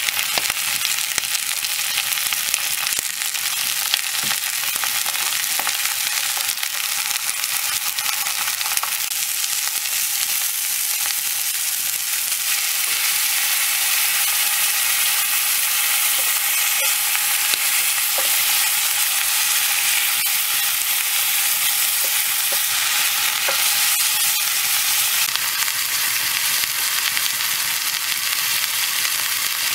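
Beef steaks and sliced shallots frying in a cast-iron skillet over a wood fire: a continuous sizzle with small crackles, louder for a stretch partway through.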